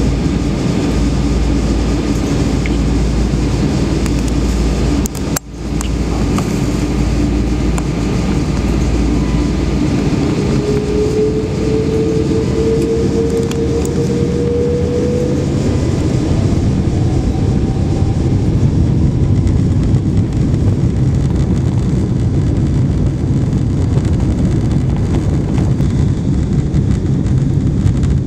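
Boeing 777-200ER jet engines heard from inside the cabin, spooling up for takeoff: a steady loud rumble with a faint whine rising in pitch around the middle, then a deeper rumble building as the takeoff roll gathers speed. The sound drops out for a moment about five seconds in.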